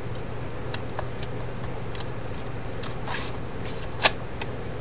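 3.5-inch floppy disk being pushed into a USB floppy drive held in the hand: a scatter of light clicks and ticks from the disk seating and the drive mechanism, with a short rustle a little after three seconds and one sharp click about four seconds in, as the drive acknowledges the disk.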